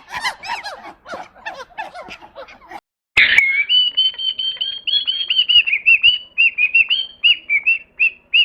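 Many overlapping chattering animal calls, then after a short break a bird's high chirps repeated about two to three times a second, coming faster toward the end.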